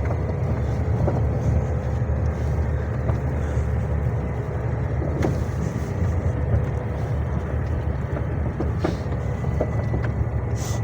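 Heavy truck driving, heard from inside the cab: a steady low engine drone with road noise and a few faint rattles.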